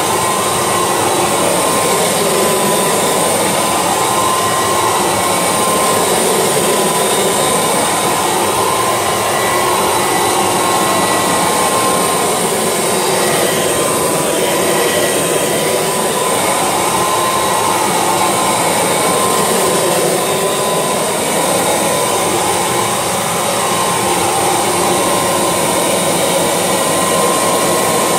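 Kirby Legend II upright vacuum cleaner running steadily with a whine, its tone rising and falling every few seconds as it is pushed back and forth over a carpet mat.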